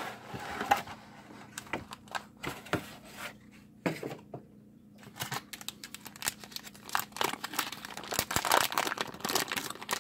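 Plastic packaging bags, including a metallised anti-static bag, crinkling as they are handled and unwrapped: scattered sharp crackles with a short pause about four seconds in, then a denser stretch of crinkling near the end.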